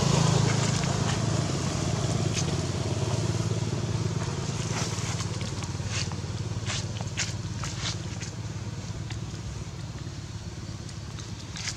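A motor engine running with a low, steady hum that slowly fades away, with a few sharp clicks in the middle.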